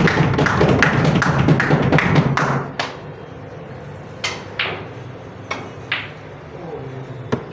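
A loud run of rapid sharp taps for about the first two and a half seconds, then single sharp clicks of snooker balls striking, two of them in pairs about half a second apart.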